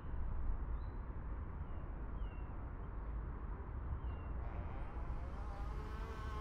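A steady low ambient rumble with a few faint, short high chirps, and wavering tones coming in near the end.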